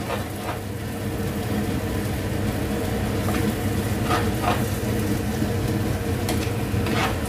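Thick red chilli masala sizzling in a clay pot as a steel spoon stirs it, with a few faint scrapes of the spoon against the pot over a steady low hum. The paste is being sautéed until its water cooks off and the oil separates.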